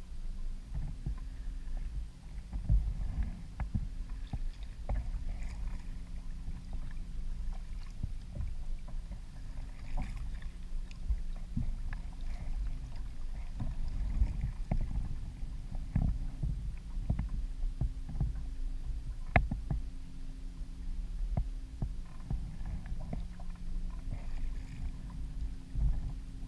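A kayak on the water: a steady low rumble with scattered knocks and clicks against the hull, and a faint low hum underneath. One sharper knock comes about two-thirds of the way through.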